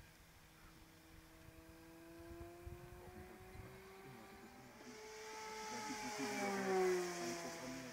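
A 3D-printed RC model P-47 Thunderbolt's motor and propeller droning in a steady tone in flight. It grows loud as the plane passes close, peaking about seven seconds in, with the pitch dropping as it goes away.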